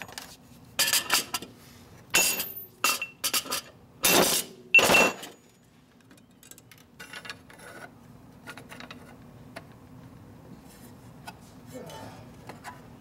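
Metal clutch plates clinking against each other and the sprocketed basket of a Rivera Primo pro clutch as they are fitted by hand. A quick run of sharp metallic clinks, some ringing, fills the first five seconds, then quieter handling with light ticks.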